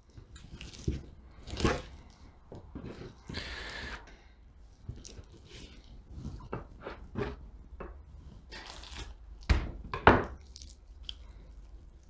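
Raw chicken thighs being cut and handled with a knife on a plastic cutting board: scattered soft clicks, knocks and wet squishing of meat, with louder knocks about a second and a half in and about ten seconds in.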